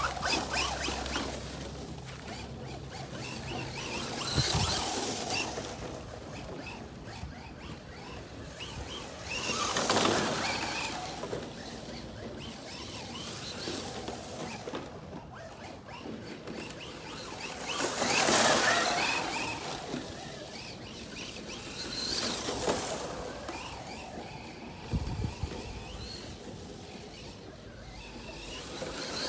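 Traxxas Rally electric RC car driving over a lawn covered in dry leaves: a high motor whine with the rush of its tyres through the leaves, swelling louder several times as the car passes near.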